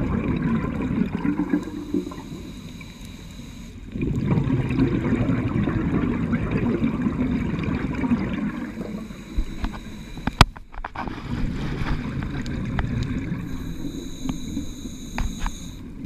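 Scuba regulator exhaust bubbles gurgling in long rumbling surges, heard underwater, with a quieter pause about two seconds in. A single sharp click about ten seconds in.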